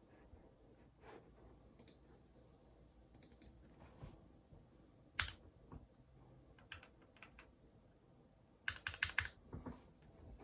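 Keys of a Keychron mechanical keyboard pressed in scattered single clicks, then a quick run of about half a dozen keystrokes near the end.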